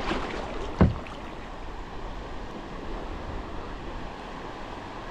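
Steady rush of fast-flowing river water, with one sharp thump about a second in.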